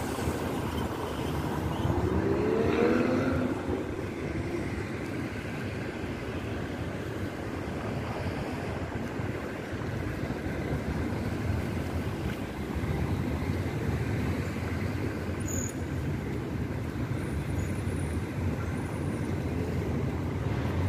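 Road traffic: car engines and tyres passing, with one engine rising in pitch as it accelerates about two to four seconds in, then a steadier low engine hum in the second half.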